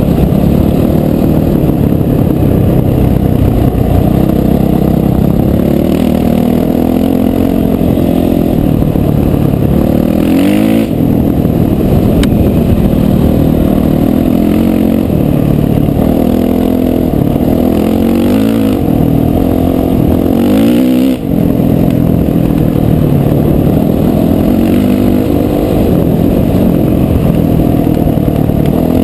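Dirt bike engine running hard while riding, its note climbing and falling with the throttle, with a brief drop about a third of the way in and again about two-thirds in.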